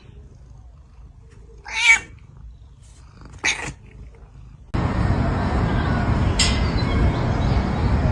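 A cat meowing: one drawn-out cry with a wavering pitch about two seconds in, and a shorter cry a second and a half later. Then, near the two-thirds mark, a louder steady rushing noise begins abruptly and runs on.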